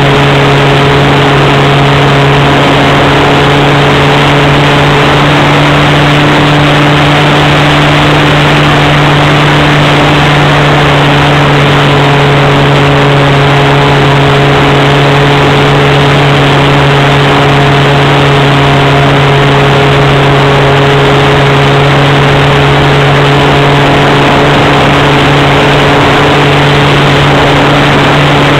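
Swift 40 model plane's .46 nitro glow engine running steadily at flying speed, very loud and close from the wing-mounted camera, holding an even pitch over a dense hiss of rushing air.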